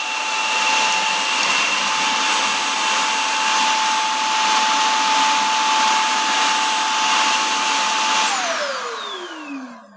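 Dyson Spot+Scrub Ai robot vacuum's self-emptying dock running its suction motor to empty the robot's dustbin: a steady loud rush of air with a high whine. Near the end the motor winds down, the whine falling in pitch as the sound fades out, the emptying finished.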